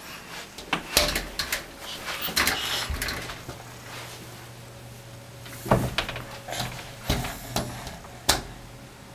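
A baby's palms slapping against a mirrored closet door, making irregular knocks and rattles of the door panel: a cluster in the first few seconds, a pause, then several more slaps after about five seconds.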